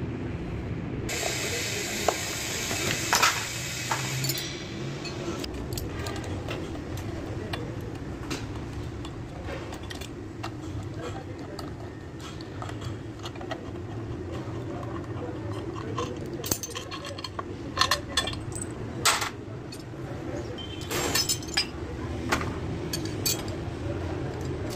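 Ratchet wrench clicking as bolts are turned on a diesel engine, with a run of quick ratcheting about a second in, then scattered clinks and taps of metal tools on the engine over a steady workshop hum.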